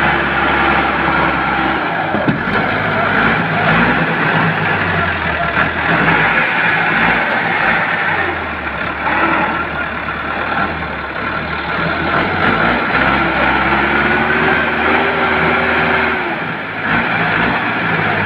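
Massey Ferguson 385 tractor's diesel engine running hard under load, its pitch wavering up and down, as the rear wheel spins and digs into loose soil.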